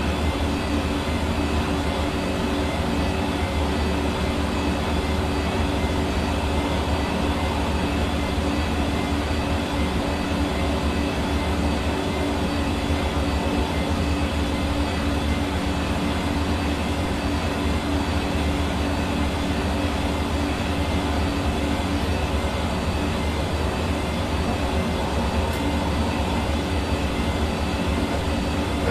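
Hair dryer running continuously at a steady speed: an even rush of blown air over a constant motor hum.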